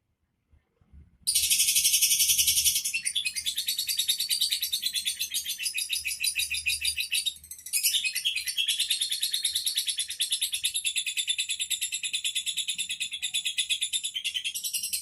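Lovebird singing a long, very fast, high-pitched chattering trill. It starts about a second in and continues with one brief break midway.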